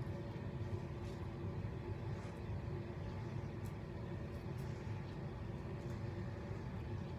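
A steady low hum of room noise, with a few faint short scratches of a double-edge safety razor scraping stubble from a lathered cheek.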